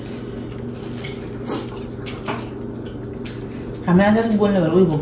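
A few light clinks of cutlery against dishes over a steady low hum, then a person's voice near the end.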